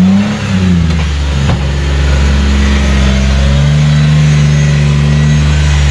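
Off-road vehicle engine running at low revs close by. Its pitch dips briefly about half a second in, then holds steady. A single knock sounds about a second and a half in.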